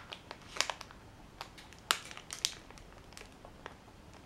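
Plastic wrappers of Tim Tam biscuit packets crinkling as they are handled. Quiet, irregular crackles, with a few sharper ones in the first half.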